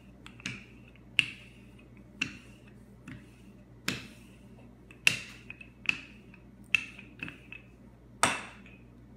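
Old wooden rolling pin clacking as it is rolled back and forth over pie dough on a granite counter: about a dozen sharp knocks, unevenly spaced at roughly one a second.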